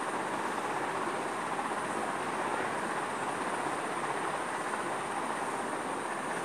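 Steady, even background noise with a faint constant high-pitched whine, unchanging throughout.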